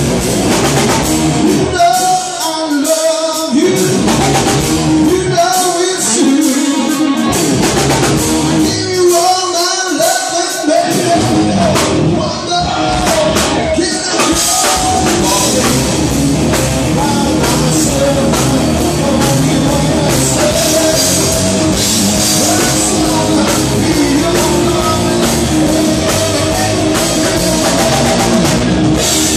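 Live rock band playing: a singer over electric guitars, bass guitar and drum kit. Three times in the first dozen seconds the bass drops out briefly before the full band comes back in.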